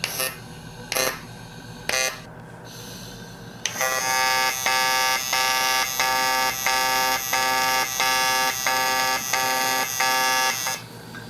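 TIG welding arc on an aluminum 13B rotor housing, filling a hole eaten by corrosion. Three short buzzing bursts about a second apart as the arc is struck, then from about four seconds in a steady electrical buzz that pulses about one and a half times a second, cutting off near the end.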